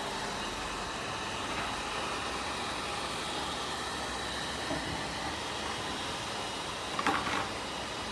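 Steady rushing noise of pet grooming dryers running, with one brief sharper sound about seven seconds in.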